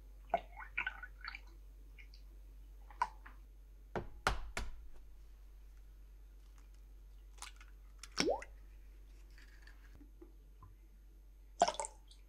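Light clicks, taps and sharp knocks of glass and utensils as milk, an egg and vanilla are added to a glass measuring jug, the loudest knocks about four seconds in, over a steady low electrical hum.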